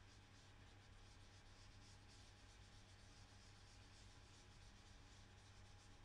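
Near silence: a low steady hum, with faint soft rubbing of a sponge dauber dabbing ink onto card stock.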